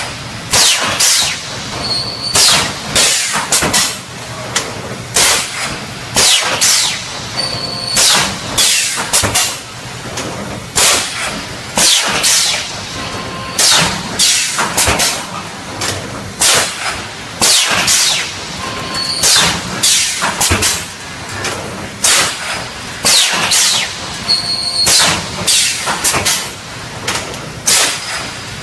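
3D wire mesh panel welding machine running: repeated sharp bursts of noise, about one every half second to a second in loose groups, as its pneumatic welding heads cycle, over a steady mechanical background noise.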